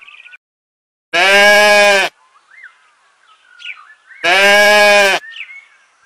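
A sheep bleating twice, each bleat about a second long with a slight waver, the second starting about three seconds after the first.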